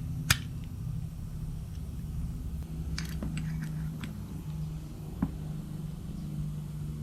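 Small metal parts and hand tools being handled during a brake-caliper strip-down: one sharp click about a third of a second in, a few lighter clicks and taps around the middle, over a steady low hum.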